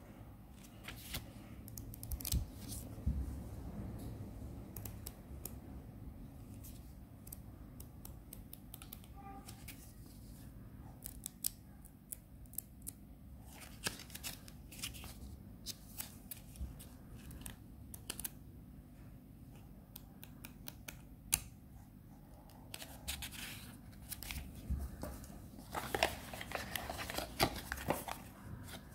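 Paper pages of a small instruction booklet being handled and turned, with scattered light rustles and clicks. Near the end comes a denser stretch of rustling as a thin cardboard box is opened and handled.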